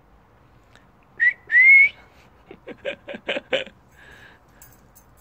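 A two-note whistle: a short note, then a longer note that rises in pitch. It is followed by a quick run of five or six short, fainter clicking sounds.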